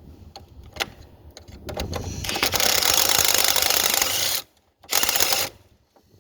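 Power tool with a fast rattle, run in a long burst of about two seconds, then briefly again near the end, as it works the alternator's 13 mm mounting bolts.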